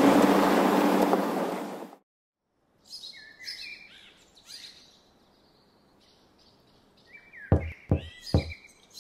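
Music fades out over the first two seconds, then birds chirp and tweet in short high calls. Near the end come three quick knocks, a cartoon excavator's bucket knocking on a garage door, with more chirps among them.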